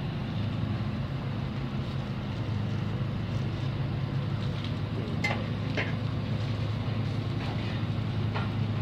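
Machinery running steadily with a constant low hum, with a few faint clicks about five to six seconds in and again near the end.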